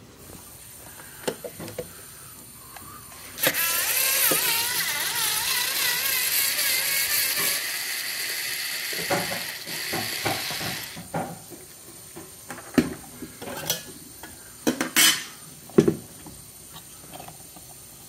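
Small battery-powered cordless screwdriver running for about seven seconds as it backs out screws, its geared motor whining with a wavering pitch. A few sharp clicks and taps follow.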